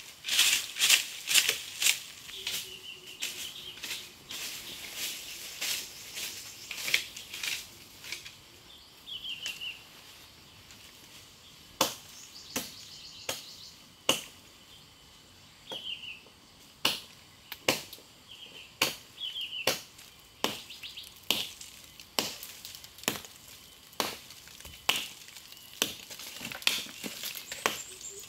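Dry leaves and undergrowth crunching and snapping in irregular sharp strokes as brush is hacked and cleared with a machete, thickest in the first couple of seconds. Short, falling bird chirps come now and then.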